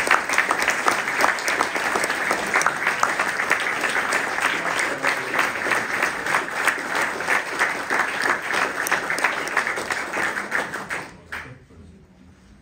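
Audience applauding: dense clapping that dies away about eleven seconds in.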